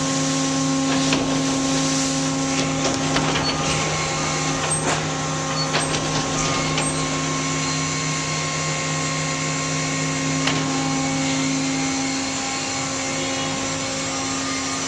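Full-penetration closed-door baler and its conveyor running with a steady machine hum while paper scrap is fed in, with scattered knocks and rattles in the first half and one more about two-thirds through.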